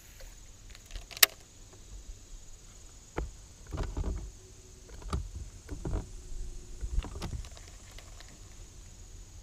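Fishing gear being handled in a boat: a sharp click about a second in, then a string of dull knocks and bumps against the hull.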